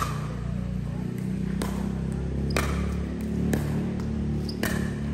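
Sharp ball hits about a second apart in a doubles racket-sport rally, over a steady low hum.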